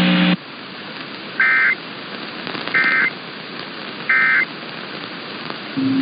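Three short two-tone warbling data bursts of the Emergency Alert System's SAME code, about a third of a second each and roughly 1.4 s apart over steady radio hiss: the end-of-message signal that closes a National Weather Service severe thunderstorm warning. A loud low steady tone cuts off just after the start, and another low steady tone comes in near the end.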